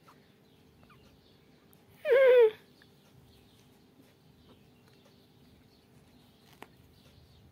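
A young kitten mews once, about two seconds in: a short call that falls in pitch. The kittens are calling for their mother, who has been kept apart from them.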